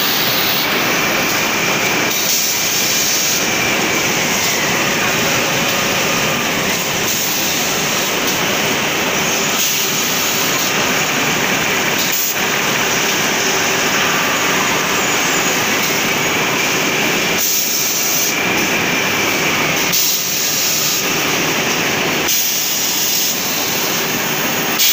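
Double-channel toilet-tissue log saw and its roll conveyors running: a loud, steady mechanical din, with a faint whine that glides up and down in pitch twice.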